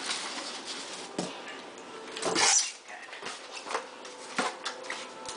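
Cardboard and foam packaging being handled: light knocks and rustling, with one louder scraping rush about two seconds in as a white foam insert is slid out of the box.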